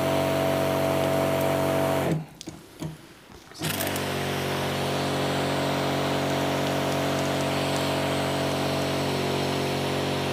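Electric pump of a Masand 16-litre battery knapsack sprayer running at pressure, a steady hum under a hiss. It cuts out about two seconds in and starts again a second and a half later.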